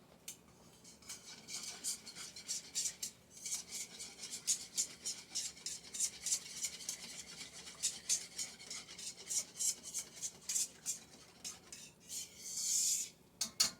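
A utensil stirring a thickening white sauce in a wok, scraping the pan in quick, even strokes about three times a second, with one longer scrape near the end.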